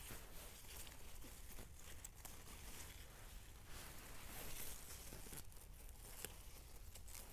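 Faint rustling and crackling of plants and leaf litter, with scattered small snaps and clicks.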